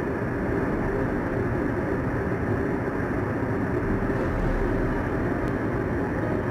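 Steady engine rumble that holds an even level, with no rises, breaks or separate knocks.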